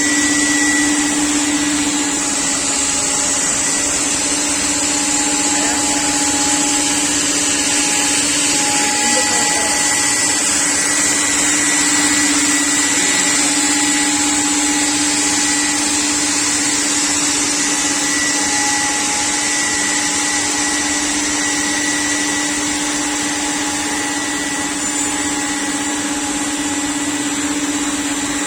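CNC panel-cutting machine running steadily: a constant hum and high whine over a loud, even rushing noise.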